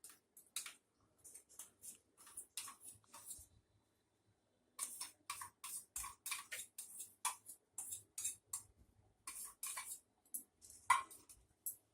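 A spoon scraping and tapping against a container in quick irregular strokes as cream is spooned out, with a short pause partway and one louder knock near the end.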